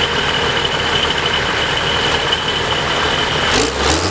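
Tractor-pull tractor's diesel engine running steadily with a high whine over it, then revving up about three and a half seconds in as black smoke puffs from the exhaust stack.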